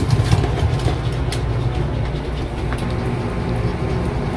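Steady low hum of a running air conditioner, with a few faint light clicks over it.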